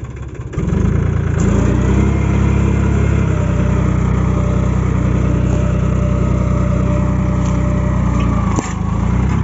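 Mahindra 265 DI tractor's three-cylinder diesel engine running steadily under load while pulling a cultivator through the soil. It comes in louder about half a second in and eases off a little near the end.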